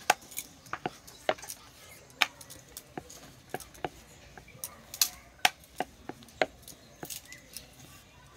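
Rolling pin tapping and clicking against a round wooden rolling board as dough is rolled out: short, sharp, uneven knocks, about three a second.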